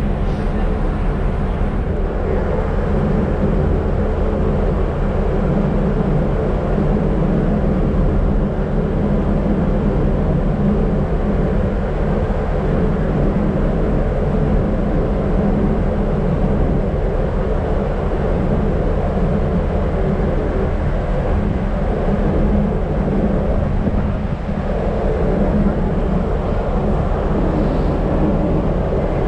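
A large ferry's engines running in a steady low drone while the ship turns away from the pier.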